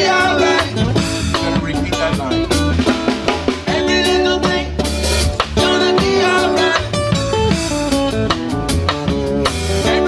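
Live reggae band playing acoustic guitar, electric bass guitar and drum kit, with a steady beat.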